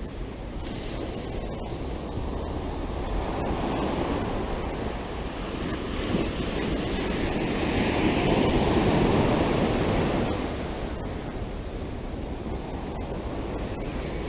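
Ocean surf breaking and washing up a sandy beach. It swells to its loudest about two-thirds of the way through, then eases off.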